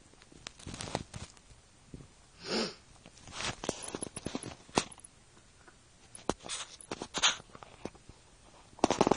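Rabbits crunching dry food nuggets: a run of small, irregular crunches and clicks. There is one louder short burst of noise about two and a half seconds in and a louder cluster of knocks near the end.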